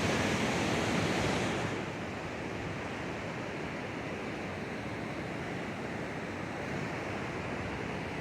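Ocean surf washing on the beach, a steady wash of noise that is louder and brighter for the first second and a half or so.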